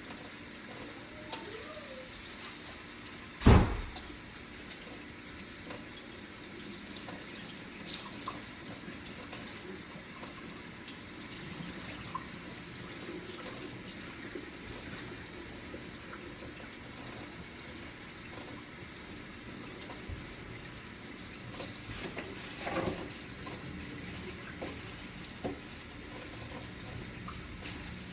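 Kitchen tap running steadily into the sink as baby carrots are rinsed under it. A single loud thump about three and a half seconds in, and a smaller knock near the end.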